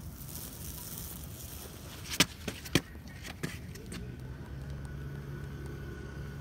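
A cloth print being peeled off an inked iron manhole cover: a high, papery rustling of fabric pulling away from the tacky ink, then two sharp knocks about half a second apart, over steady street traffic noise.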